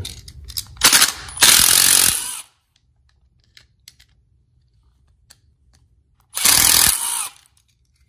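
Cordless screw gun running in short bursts, backing the terminal screws out of a new electrical outlet: two bursts about a second in, another about six and a half seconds in. Faint handling clicks between.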